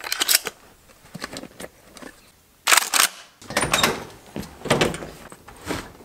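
Rustles and light knocks of a pump shotgun being slid into a canvas soft case, with a loud knock nearly three seconds in. Then a pickup truck's door is opened, with clunks and rummaging in the cab.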